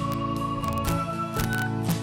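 Background music: held instrumental chords over a steady beat, with the chord changing about a second in.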